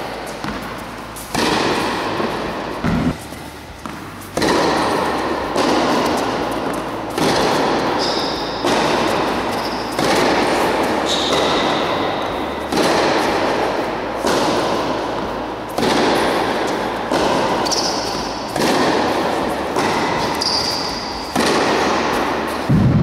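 Tennis rally on an indoor hard court: racquets strike the ball about every one and a half seconds, each hit ringing out through the large hall. Shoes squeak briefly on the court a few times.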